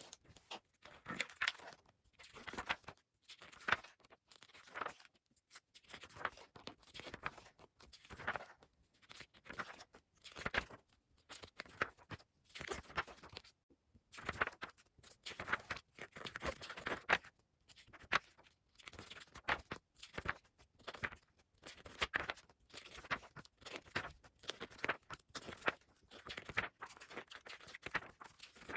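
Pages of a glossy magazine being flipped quickly by hand, a short papery swish and flutter about once a second.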